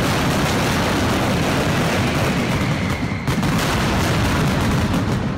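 Pirotecnia Ricasa's mascletà firecrackers going off in a dense, continuous barrage, the bangs so close together that they merge into one heavy rumble, with a brief dip about three seconds in: the closing ground barrage of the show.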